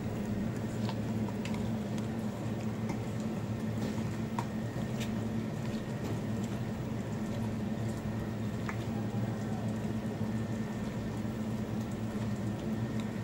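Hand squelching and squishing raw mutton pieces coated in spices and mustard oil in a steel bowl, with scattered small clicks. A steady low hum runs underneath.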